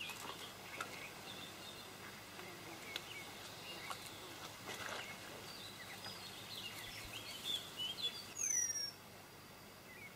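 Small birds chirping and trilling, faint, with a louder falling call about eight and a half seconds in. A few faint ticks come in under the birds.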